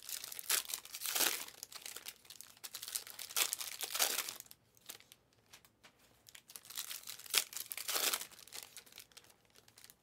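Foil trading-card pack wrappers crinkling and tearing as packs are opened and handled. The crinkling comes in repeated short bursts, with a quiet pause of about a second and a half near the middle.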